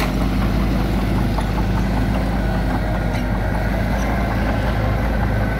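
Small crawler bulldozer's diesel engine running steadily as the dozer pushes loose soil with its blade.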